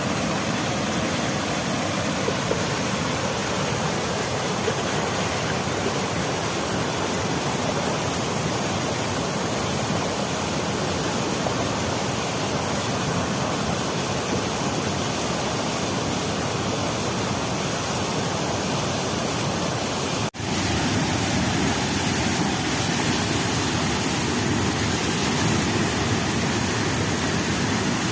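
Waterfall: a steady, dense rush of falling and splashing water. About twenty seconds in it cuts out for an instant and comes back a little louder and deeper.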